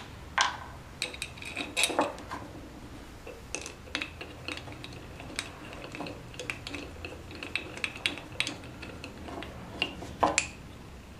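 Small metal screws and hardware clicking and clinking as they are picked out of a plastic parts organizer and fitted by hand into an aluminium block, in scattered light taps, with a louder knock about ten seconds in.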